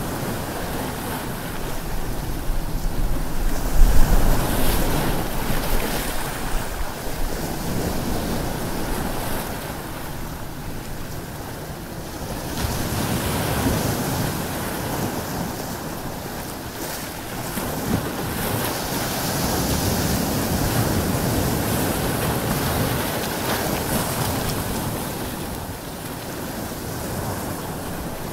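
Ocean surf washing onto a beach, swelling and easing every several seconds, with wind. The biggest swell comes about four seconds in.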